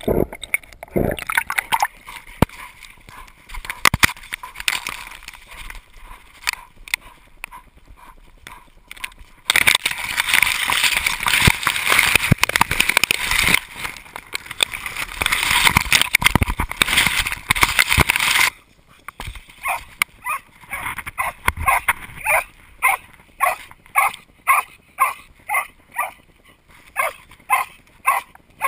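A dog swimming in a river: water sloshing and gurgling around it, with a loud, steady rush of water for about nine seconds in the middle. Near the end comes a run of short, even pulses, about two a second.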